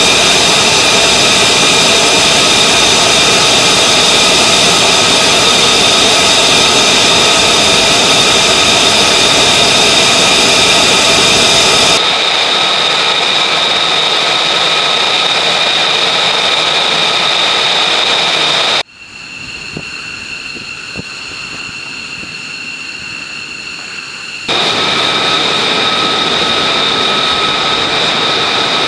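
F-35 Lightning II jets' F135 turbofan engines running on the ground: a steady rushing roar with a high, steady whine on top. The sound changes abruptly from clip to clip, with a quieter, thinner whine for several seconds about two-thirds of the way through, then louder again.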